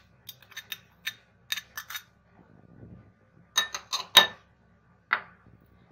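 A metal spoon clinking and scraping against glass bowls while ginger-garlic paste is scraped off into raw chicken pieces. It is a string of sharp clinks, bunched together and loudest about four seconds in, with one more a second later.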